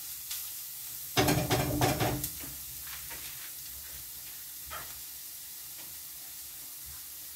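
Onion and grated carrot frying in a pan with a steady sizzle. About a second in, a loud second of clattering and scraping as the spatula stirs the pan, and a single small knock later.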